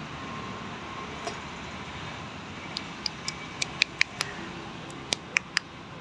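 Budgerigars giving a quick run of short, sharp chirps, about a dozen in three seconds starting about halfway in, over steady background noise.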